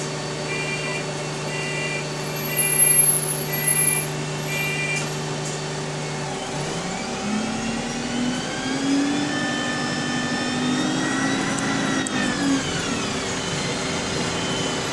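A bus's electronic beeper sounds about six short beeps over the idling engine, with a louder clattering noise partway through. The bus then pulls away: its engine and Voith automatic gearbox whine rise in pitch, drop together at a gear change, and climb again.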